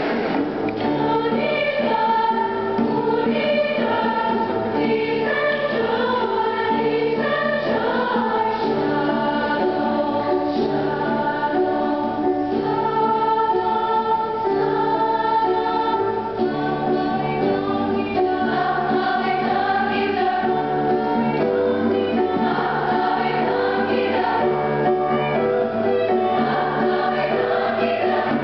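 High school choir singing in several parts at once, with held chords over a low line of notes that repeats about once a second.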